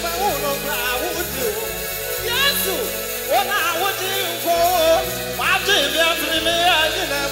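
Live Ghanaian gospel music: a man sings a sliding, wavering melody into a microphone over a band with held bass notes.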